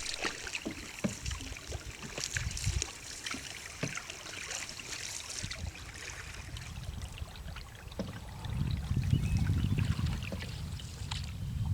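Canoe paddles dipping and pulling through lake water, with irregular small splashes and drips. About two-thirds of the way through, a steady low rumble comes in and grows louder under the splashing.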